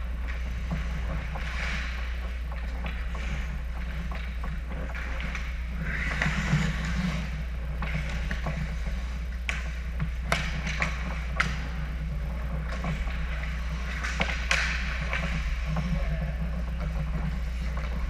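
Ice hockey play at close range: skate blades scraping and carving on the ice, with sharp clacks of sticks and puck, clustered in the middle of the stretch, over a steady low rink hum.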